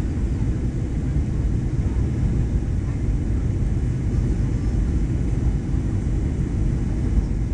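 Steady low rumble of a Boeing 737-900's engines and airflow heard inside the passenger cabin, even and unbroken.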